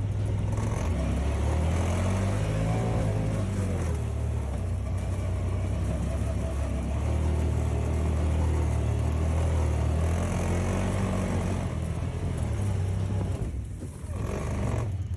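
Side-by-side UTV engine running hard as it takes a run through a snowbank on the trail, revs rising and falling, with a brief drop in power near the end.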